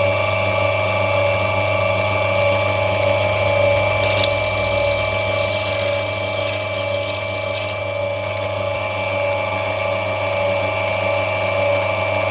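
Lapidary grinding machine running with a steady motor hum while opal is rubbed back on its wheel; about four seconds in a loud hissing grind starts and runs for nearly four seconds before cutting off suddenly.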